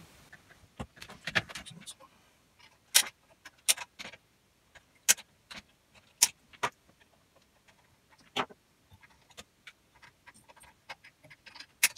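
Sharp, irregular clicks of side cutters snipping the legs of two bridge rectifiers on a Denon AV receiver's power-supply board, with fainter clicks of metal parts and tools between the louder snips.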